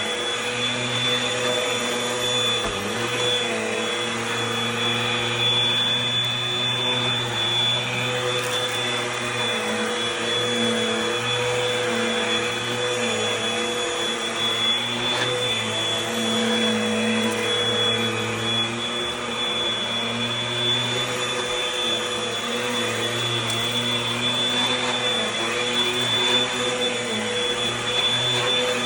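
Eureka Airspeed Gold upright vacuum cleaner running steadily on carpet, its motor holding a constant high whine that shifts a little in pitch as it is pushed back and forth.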